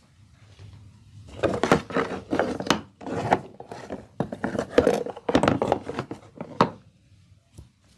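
Hands rubbing over hair and scalp in a head massage: a run of uneven rubbing strokes, with a few sharper slaps among them, stopping about a second before the end.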